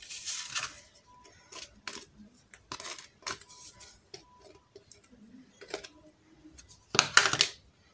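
Handling sounds at a kitchen counter: a white paper sheet rustling in several short bursts, the loudest about seven seconds in, with light clinks of small metal tartlet tins.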